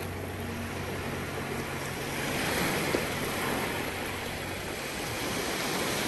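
Sea surf: waves washing in on the shore, swelling louder about two seconds in and then easing off.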